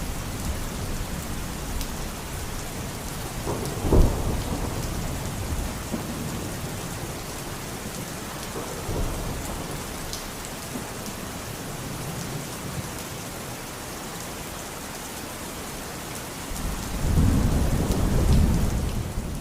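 Steady rain in a thunderstorm, with a sharp crack of thunder about four seconds in and a long, low rumble of thunder near the end.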